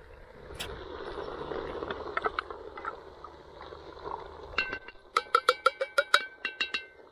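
Wooden spoon knocking and scraping inside a small metal tin of tomato concentrate, tipping the paste into a cast-iron pot. In the second half it becomes a quick run of ringing taps, about six a second, with the tin ringing at each knock.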